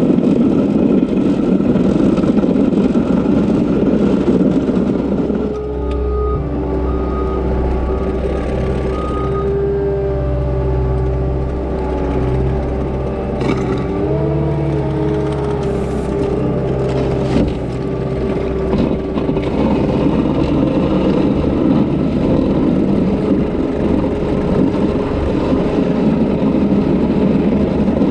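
Caterpillar track skid steer's diesel engine running hard while plowing snow. It settles into a steadier, more even-pitched drone from about 6 to 20 seconds in, then goes back to a rougher working sound.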